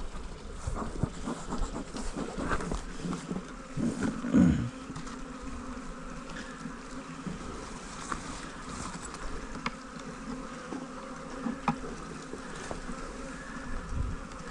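Honeybees buzzing in a steady hum around the opened hive as the colony is shaken out. Knocks and clatter of wooden hive parts being handled come in the first few seconds, loudest about four seconds in, with a few sharp clicks later.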